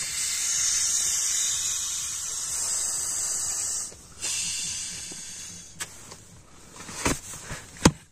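Rushing hiss of air as an inflatable camping pillow is blown up by mouth through its valve: one long blow of about four seconds, then a shorter, fading one. A few sharp taps and clicks follow near the end, the loudest just before it ends.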